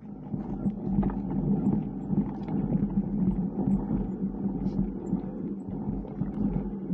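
Motorcycle engine running steadily at low revs, with a few faint clicks and knocks over it.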